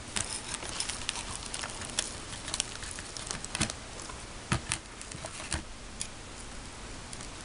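Small scattered clicks and crinkles of a foil candy-kit sachet being handled and shaken over a plastic tray, with a few sharper taps on the tray about four and a half seconds in.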